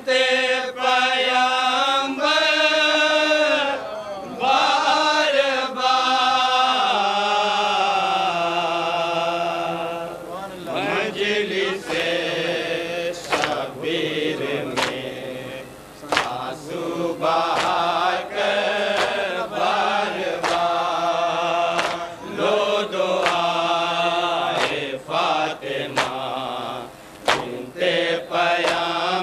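Voices chanting an Urdu nauha, a Shia mourning lament, in long, wavering sung lines, with sharp beats keeping time through the second half.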